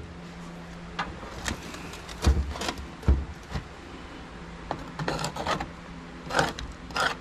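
Hand-handling noise as a motherboard is worked loose from a computer case: scattered plastic and metal clicks and rubbing, with two dull knocks about two and three seconds in. The board is still held by a plastic piece.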